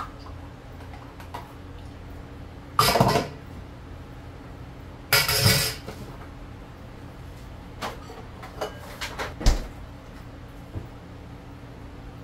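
Kitchen utensils clattering against dishes and an aluminium foil pan as food is served out: two louder rattles, then a few light clicks and a knock, over a steady low hum.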